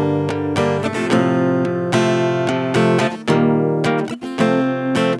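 Acoustic guitar, a GWC 235 NA, strumming chords in a steady rhythm, with a brief break about four seconds in.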